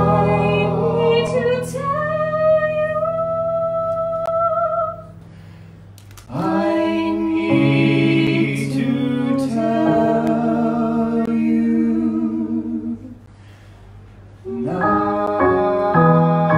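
A man and a woman singing a slow musical-theatre duet over instrumental accompaniment, with long held notes and vibrato. The singing drops out briefly twice, and near the end the accompaniment plays repeated chords.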